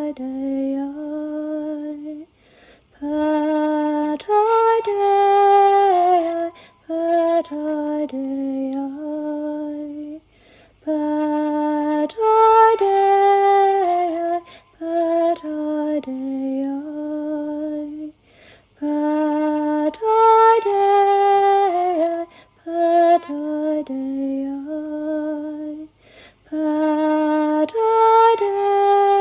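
A woman singing a slow, unaccompanied melody of held, gliding notes in phrases with short breaths between, the phrase pattern recurring about every eight seconds.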